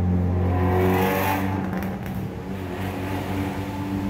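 A motor vehicle's engine running at a steady low pitch, with a brief hiss about a second in.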